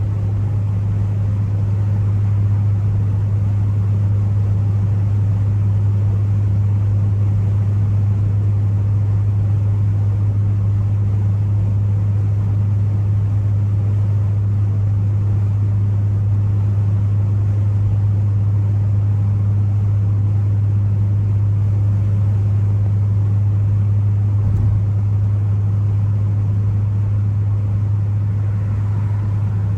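Ford Focus ST driving at a steady speed, heard from inside: a constant low drone of engine and road noise that holds one pitch throughout, with no revving or shifting.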